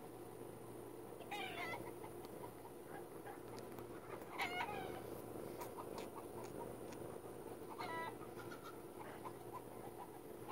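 Chickens calling: three short pitched calls, each about half a second, a few seconds apart, over a steady low hum.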